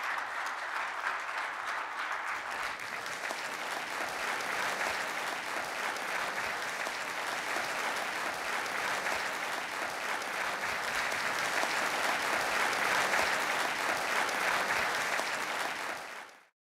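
Audience applauding steadily, the clapping cut off abruptly near the end.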